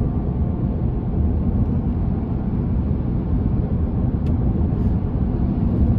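Steady road and wind noise inside the cab of an electric Tesla Cybertruck cruising at highway speed, with no engine sound.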